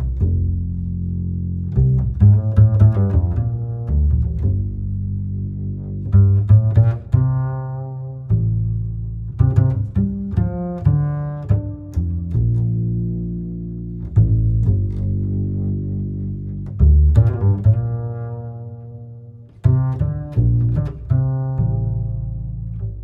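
Music with deep, heavy plucked bass notes, each struck and left to decay, in short phrases, played through an amplifier and speakers during a sound check. Near the end one phrase fades away before the next begins.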